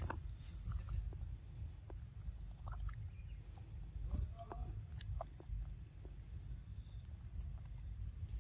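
An insect chirping at an even pace, short high chirps a little more than once a second, over a steady low rumble, with scattered faint clicks.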